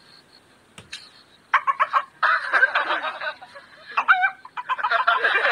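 A man imitating fighting roosters with his voice: a run of choppy clucks and squawks that starts about one and a half seconds in and goes on to the end.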